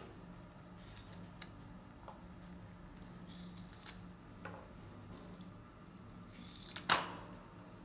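A baby monkey biting and chewing crisp red fruit: a few small crunches and clicks, then one loud crunchy bite about a second before the end, over a faint steady low hum.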